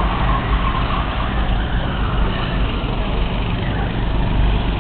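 Racing go-karts' small engines buzzing as they lap the track, under a steady low rumble, with a higher engine note fading in the first second.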